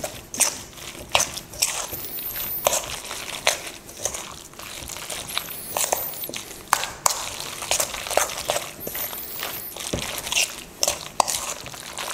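A spoon stirring a thick, wet batter of chickpea flour and chopped vegetables in a stainless steel bowl. The spoon knocks and scrapes on the metal in irregular clicks, with wet squishing from the batter.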